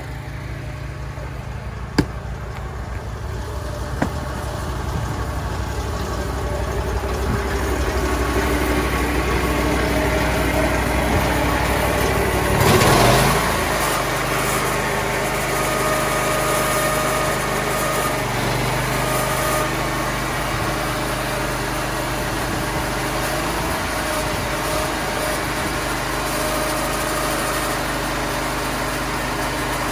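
A small engine running steadily, growing louder over the first several seconds, with a couple of sharp clicks early on. About 13 seconds in there is a brief loud rush of noise, after which the engine note changes and runs on.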